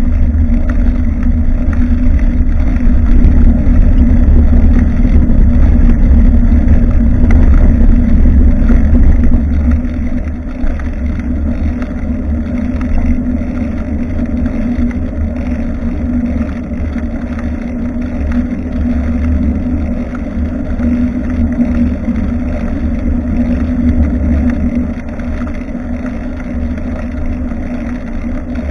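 Wind buffeting and road rumble on a bicycle-mounted action camera's microphone while riding, a steady deep rumble that is louder for the first ten seconds and then eases off.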